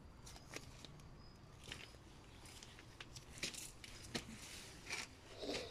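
Leafy garden greens being handled and picked: faint rustling of leaves with a few scattered crisp snaps and tearing sounds, and a longer rustle near the end.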